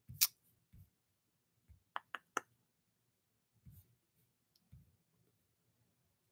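A few quiet, sharp clicks: one about a quarter second in, then three in quick succession about two seconds in, with faint low thumps between them.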